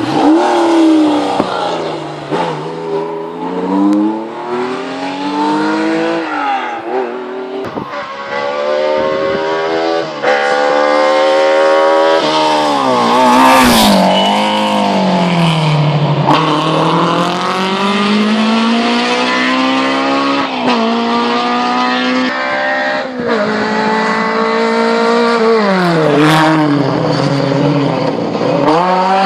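Hillclimb race car's engine revving hard, its pitch climbing and dropping again and again as it accelerates and backs off. There is one sharp crack about thirteen seconds in.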